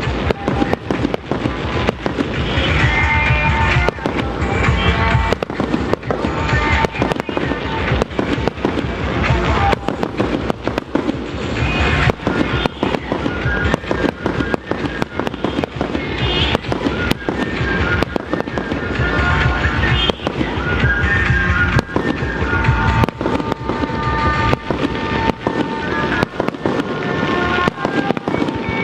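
Fireworks display: aerial shells going off in a dense, steady series of bangs and crackles, with music playing along underneath.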